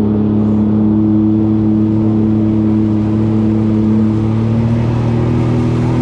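Sea-Doo jet ski engine running under way at steady throttle, its engine note holding one even pitch.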